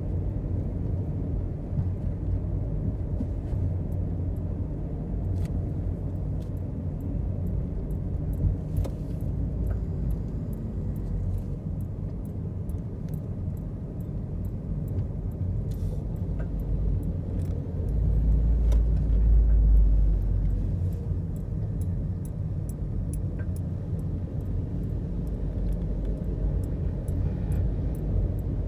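Car driving: a steady low road rumble with faint light rattles, swelling louder for a couple of seconds about two-thirds of the way in.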